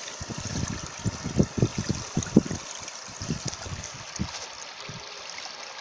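Shallow stream water trickling and gurgling, with irregular low thumps through it, strongest about one and a half to two and a half seconds in.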